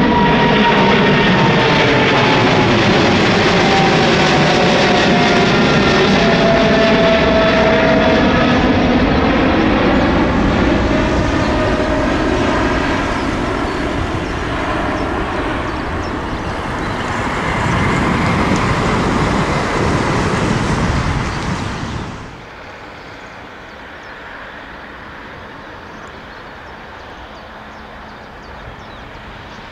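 Boeing 777-300ER's GE90 jet engines at takeoff thrust climbing away overhead: loud jet engine noise with a whine that falls steadily in pitch as the airliner recedes, fading, then swelling again in low rumble. About 22 seconds in it cuts off abruptly to a much quieter steady background.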